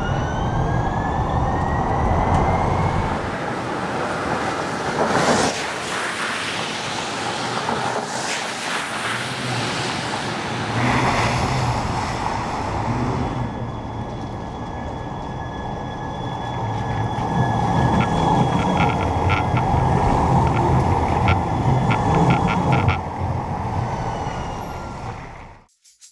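Siemens S70 electric streetcar running on street track amid road traffic, its traction motor whine rising in pitch in the first couple of seconds as it accelerates. The sound cuts off suddenly near the end.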